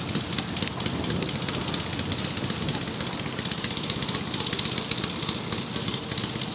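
Quad bike engines idling, a steady running noise with no pauses.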